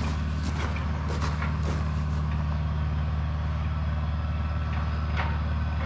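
A motor vehicle's engine idling steadily, with a few faint clicks over it.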